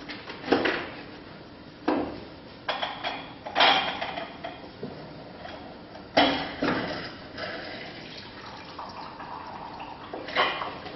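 Pomegranate being handled and pressed for its juice: a series of sharp knocks and clatters of bar tools, with liquid trickling in between.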